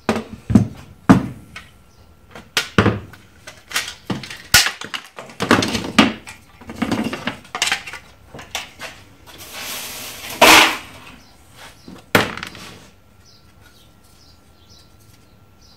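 Plastic set-top-box front-panel housing being handled and pulled apart on a workbench: a run of irregular clacks and knocks, with a longer rattle about ten seconds in, then quiet for the last few seconds.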